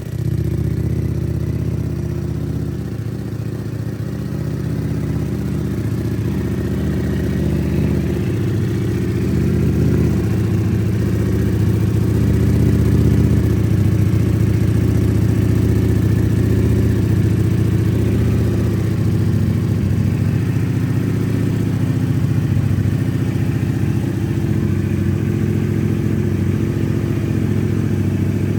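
Ducati Panigale V4S's V4 engine running steadily at idle through a Termignoni exhaust with the dB killer fitted, an even low engine note with no revs.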